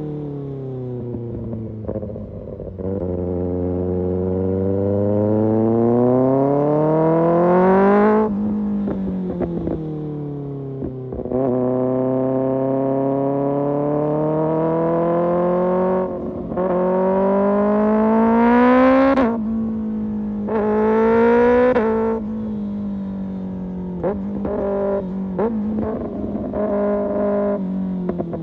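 Kawasaki ZX-6R's inline-four through an Arrow Pro Race exhaust, accelerating in several long pulls whose pitch climbs steadily before breaking off at a shift or a lift of the throttle. Near the end the revs come in short, quick blips.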